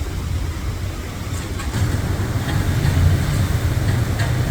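Hurricane wind blowing hard, a heavy low rumble that swells in gusts from about a second and a half in, with a few faint knocks and rattles on top.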